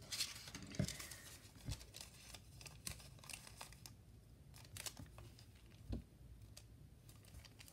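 Faint paper rustling and scraping with a few light clicks as a tiny hooked letter opener is tried out on a small scrap of paper.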